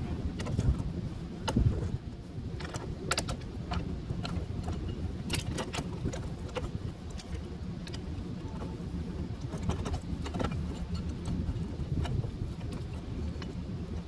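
Light metallic clicks and clinks, scattered irregularly, as the brake shoe and its spring hardware are worked off a golf cart's rear drum brake, over a steady low rumble.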